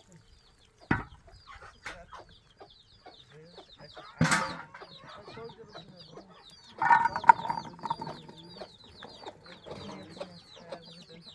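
Chickens clucking in a yard, with a steady stream of short high-pitched chirps and a few louder sudden calls or knocks at intervals.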